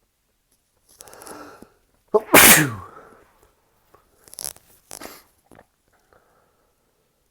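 A person sneezing during an allergic sneezing fit: a breathy in-breath, then one loud, sudden sneeze about two seconds in whose voiced tail falls in pitch, followed by two short breathy sounds a few seconds later.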